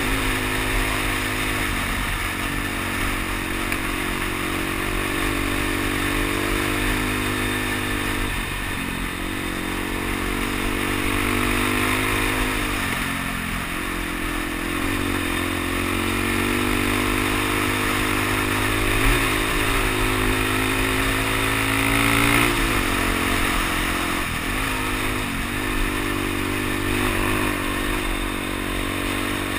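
Suzuki DR-Z dual-sport motorcycle's single-cylinder four-stroke engine running under way, its pitch climbing and dropping back several times as the rider works the throttle and gears.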